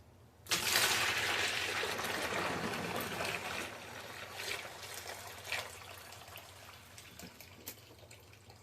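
Water rushing out of a portable washing machine's drain. It starts suddenly and tapers off to a trickle.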